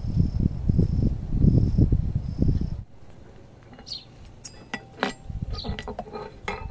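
Crickets chirping in an even pulse, about two chirps a second, over a loud low rumbling noise. Nearly three seconds in, this cuts off suddenly, and light clinks and taps of kitchenware follow.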